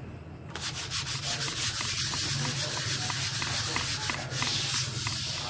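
Hand sanding a pale wooden cabinet-door frame: fast back-and-forth scratchy rubbing strokes that start about half a second in.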